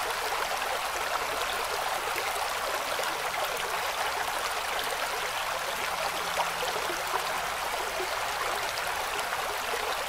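Shallow creek water running and trickling over rocks and stones, a steady even rush with no breaks.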